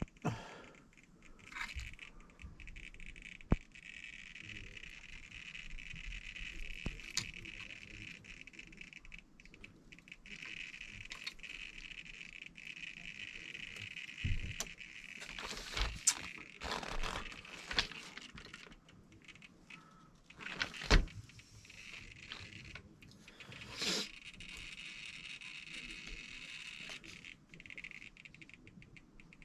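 Small plastic and metal parts of an RC crawler being handled, with scattered clicks and rattles and a louder clack about 21 s in. A faint steady high-pitched whine comes and goes underneath.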